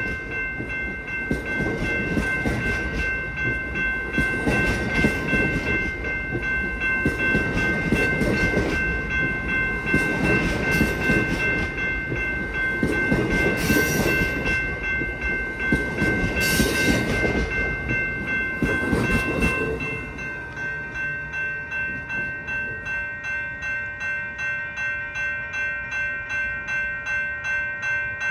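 Amtrak bilevel passenger cars rolling past close by, wheels clattering over the rail joints, with steady high ringing tones over the top. About two-thirds of the way through the rolling noise drops away, leaving a bell ringing in an even rhythm of about two strokes a second.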